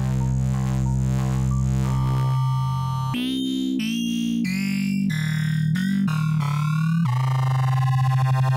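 Oscilloscope music: electronic synthesizer tones whose stereo channels draw shapes on an oscilloscope screen. A steady low drone carries a run of short repeated notes at first, then choppy, shifting chords from about three seconds in, and the drone returns near the end.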